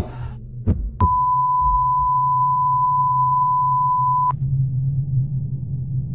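Heart-monitor sound effect: one short beat, then about a second in a steady high flatline tone held for about three seconds and cut off suddenly, the sign that the heart has stopped. A low steady hum runs underneath.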